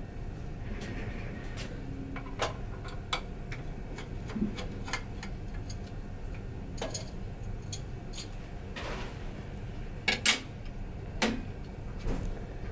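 Irregular small clicks and clinks of a screwdriver and metal parts being handled as mounting screws are removed and a metal printhead upright is lifted off and set down, with a few louder knocks near the end.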